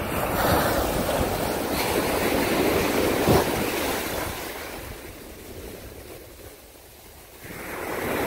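Ocean surf breaking and washing up a beach, a steady rush that swells, dies down about six seconds in and builds again near the end. A short thump a little over three seconds in.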